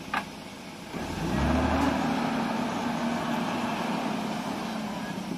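Off-road motorcycle engine revving up about a second in, then running under steady throttle with its pitch slowly falling; a couple of sharp clicks come just before.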